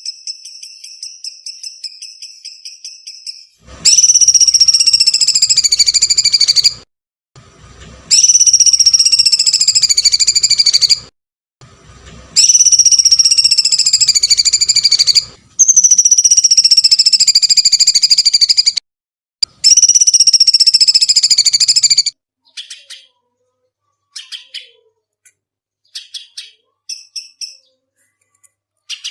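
Songbird calls for bird training: a fast trill of short high notes, then five long, loud, shrill calls of about three seconds each, each falling slightly in pitch, then scattered short chirps near the end.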